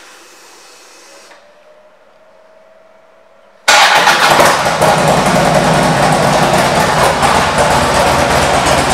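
Harley-Davidson Street Glide Special's Twin Cam 103 V-twin, fitted with an aftermarket intake and Vance & Hines exhaust, starts suddenly about a third of the way in after a faint whine, then runs loudly and steadily.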